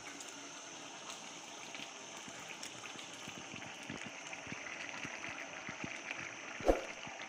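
Stew simmering in a steel pot over a gas burner: a steady hiss with fine crackling bubbles. A single sharp knock comes near the end.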